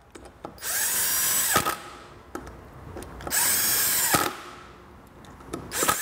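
Cordless impact wrench running the front wheel bolts of a Vespa scooter in three short runs of about a second each, the motor winding up and back down each time. The bolts are being snugged, not brought to final torque.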